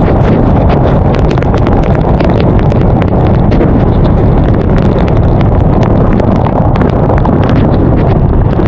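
Loud, steady wind rush on an action camera's built-in microphone on a moving motorcycle, with the motorcycle's engine and road noise underneath. Many small ticks run through it, rain striking the bare camera.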